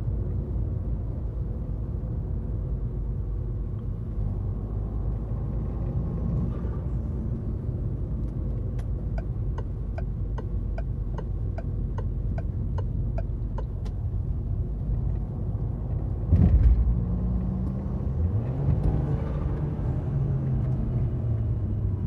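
Cabin sound of a turbocharged Citroën C4 Lounge THP driving: steady engine and road rumble, with the turn-signal relay ticking about twice a second for a few seconds midway. About three-quarters through comes a sudden loud burst, after which the engine revs rise as the car pulls away in a low gear.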